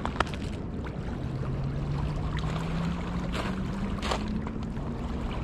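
Steady rush of river water running over a rocky bank, with a faint engine drone slowly rising in pitch through the middle. A sharp click just after the start and two short scrapes later on.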